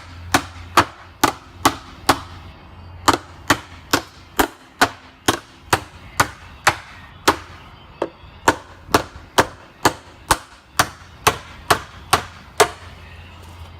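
Hammer striking the crimped aluminum tabs along the edge of a car radiator's header, about two sharp blows a second with two brief pauses, bending the tabs out so the plastic tank can be pulled off. The blows stop about a second before the end.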